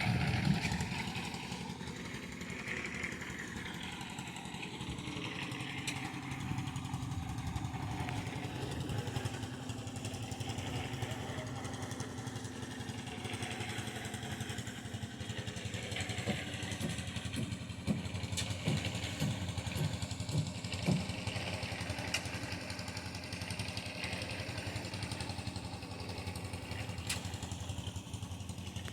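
An engine running steadily at a constant speed, with a few short clicks and knocks over it.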